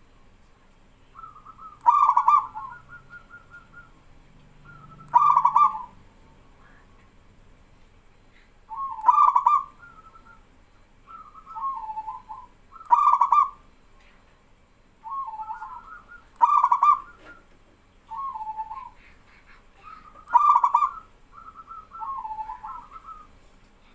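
Male zebra dove (perkutut) cooing, repeating its loud rolling phrase about every four seconds. Fainter zebra doves answer with similar coos in between.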